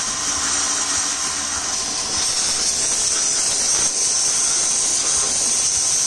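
Starq W3 1800W electric pressure washer running, its high-pressure water jet hissing steadily as it blasts a brick and splashes water back up off the concrete.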